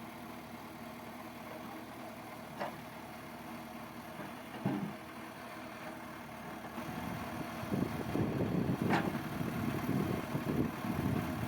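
Engine of a piece of earthmoving machinery running steadily, with a sharp click a couple of seconds in and a knock a little later; past the middle it grows louder and rougher.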